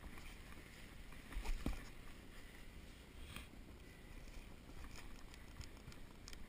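Muffled rumble and scraping of a snowboard shifting on snow, heard through a body-mounted camera, with one dull thump about a second and a half in and a few light clicks near the end.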